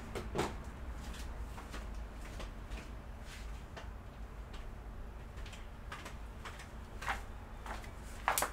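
Scattered light clicks and short taps over a steady low hum, from work on an opened iMac during cleaning. The loudest taps come just after the start and just before the end.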